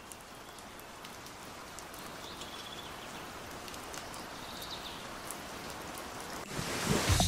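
Steady rain falling, slowly growing louder, with a few faint high chirps over it. Music comes in near the end.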